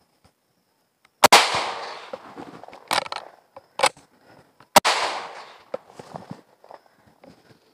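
Two shots from a 30-bore Mauser C96 pistol, about three and a half seconds apart, each echoing for about a second. Two quieter sharp clacks fall between them.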